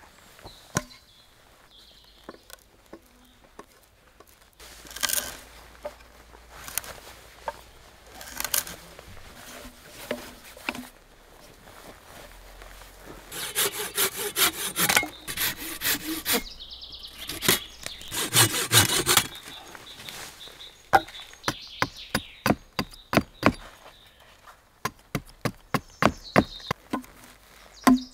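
Hand saw cutting through a dead log in two runs of quick back-and-forth strokes about halfway through. Then a string of sharp wood-on-wood knocks: a hatchet driving a wooden stake into the ground.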